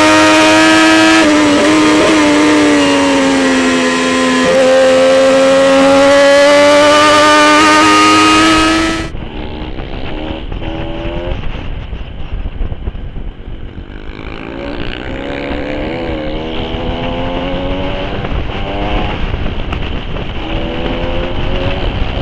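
A racing superbike's engine running at high revs, its note dipping and rising again. About nine seconds in, this cuts to a 250cc single-cylinder trail bike engine, its note rising and falling with the throttle, over low wind rumble on the helmet-camera microphone.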